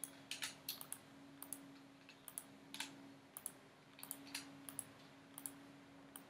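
Computer mouse and keyboard clicks, faint and irregular, many coming in quick pairs, over a faint steady hum.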